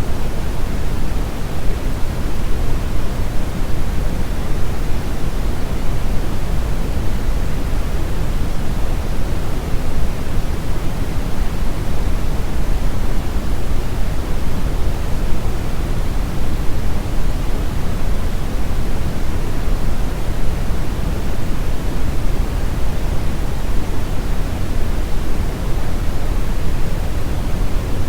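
Steady, loud noise sound effect: an even, unchanging hiss with no pattern or pitch, heavier in the bass than in the treble.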